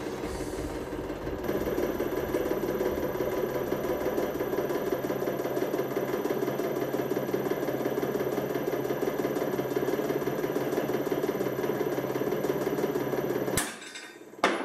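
Hydraulic press motor and pump running steadily under load as the press squeezes a metal cylinder in the jaws of a pair of pliers. It grows louder about a second and a half in. Near the end it stops suddenly, and a single sharp crack follows.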